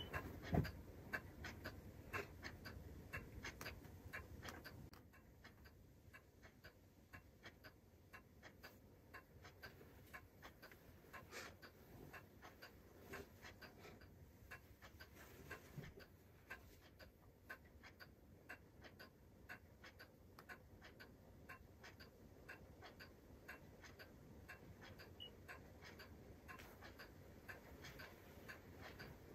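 Near silence: quiet room tone with faint, regular ticking, and a soft low noise in the first few seconds that drops away about five seconds in.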